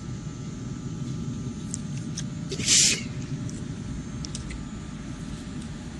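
A steady low background rumble, with one short breathy hiss about three seconds in: a drag on, or exhale from, a blunt.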